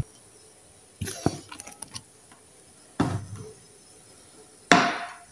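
Kitchenware being handled: three short clinks and knocks, about a second in, about three seconds in and near the end, each fading quickly.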